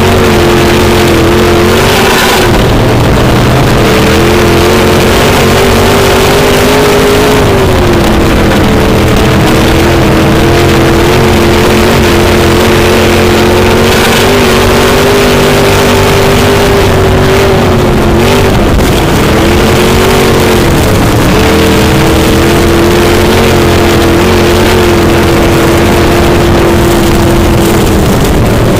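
B-Mod dirt track race car's V8 engine running hard, heard from on board, loud and steady. Its pitch holds for several seconds at a time and dips briefly about every five to ten seconds as the car lifts for the turns.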